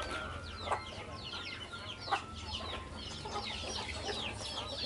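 Many chicks peeping, short falling cheeps over and over, with two sharp knocks, about one and two seconds in.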